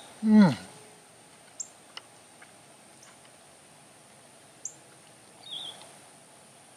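A man's short hum of enjoyment with a falling pitch, about half a second in, while eating. After it, a few faint high chirps over a steady, faint high hiss.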